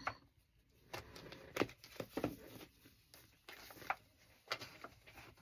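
Faint, scattered taps and rustles of paper index and recipe cards being handled and slid into a divided storage container.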